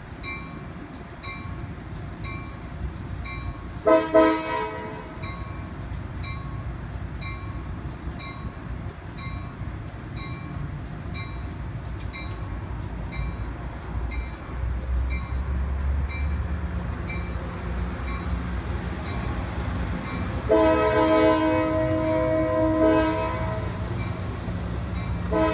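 Trains at a station: a diesel train's low rumble runs throughout under a steadily ringing bell. A train horn gives a short blast about four seconds in and a longer blast near the end.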